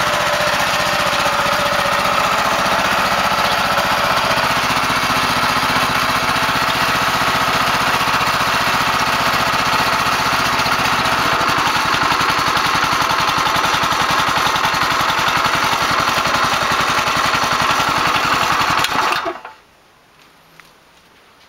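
Harbor Freight Predator 212cc single-cylinder engine idling while belt-driving a converted RV2 air-conditioning compressor that pumps air into a small tank. It runs steadily, then cuts off suddenly about nineteen seconds in.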